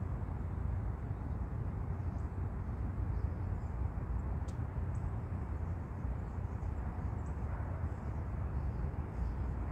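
Steady low outdoor rumble with no distinct events, and a few faint high chirps over it.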